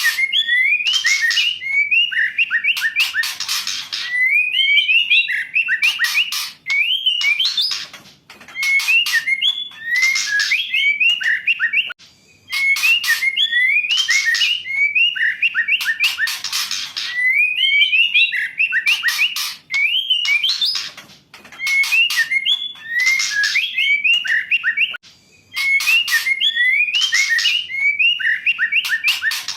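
Female white-rumped shama calling: short rising whistled notes alternating with harsh rasping chatter, in phrases broken by brief pauses every few seconds and repeated over and over. It is the kind of female call kept to stir a silent male shama into song.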